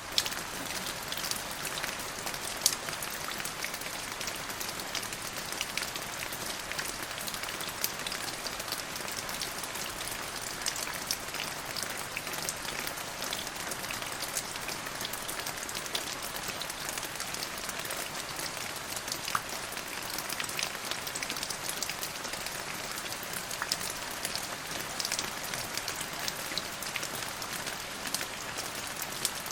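Steady rain falling on a surface: an even hiss with many sharp ticks of individual drops striking close by.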